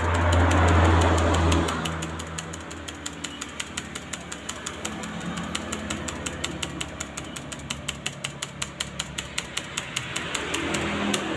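An engine running with a low hum and a fast, regular ticking. The hum is loudest for the first couple of seconds, eases, and swells again near the end.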